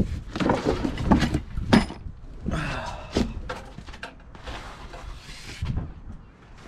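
Cardboard rustling and scraping with several knocks and clunks as a bare billet aluminium 2JZ engine block is lifted out of its shipping box and handled.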